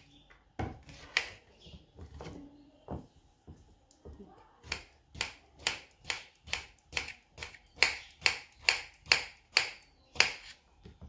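Kitchen knife chopping through peeled bottle gourd onto a wooden cutting board: a few scattered sharp knocks, then from about halfway a steady run of knocks about two a second.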